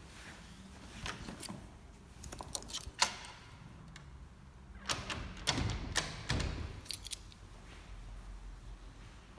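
Keys jingling on a key ring and a glass-paned door being pushed open and let go, a scatter of clicks and knocks: one sharp knock about three seconds in, a cluster between five and seven seconds, then quieter.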